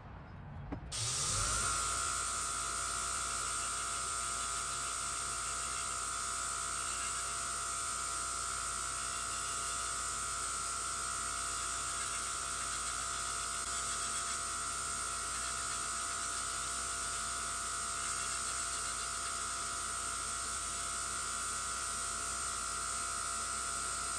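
Electric belt grinder running steadily with a constant whine over a hiss as a wooden axe handle is ground against the belt to shape it to fit the maul head. It starts about a second in.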